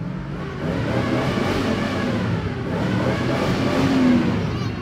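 A 1987 Jeep J10's AMC 360 V8 engine, heard from inside the cab, running and being revved. It climbs to its loudest about four seconds in, then eases off.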